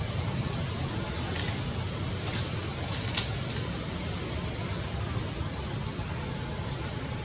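Dry leaves crackling and rustling as a baby macaque paws and pulls at them: a few brief crackles, loudest about three seconds in, over steady low background noise.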